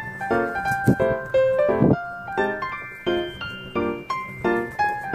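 Background piano music: a light melody of short struck notes following one another.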